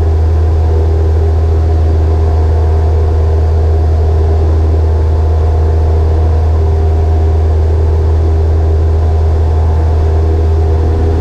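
Single-engine propeller aircraft droning steadily at climb power just after takeoff, heard inside the cockpit: a loud, even low hum with a few steady tones from the engine and propeller.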